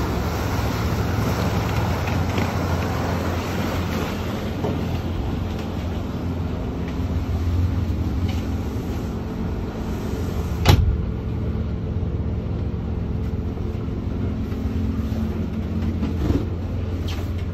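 Jeanneau 695 Sport motorboat under way, heard from inside its wheelhouse cabin: the steady low drone of its outboard engine with water rushing along the hull. A single sharp knock about two-thirds through, after which the hiss is quieter.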